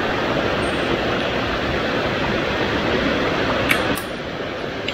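Steady rush of a small mountain stream running over rocks and little cascades, with two light clicks shortly before the end.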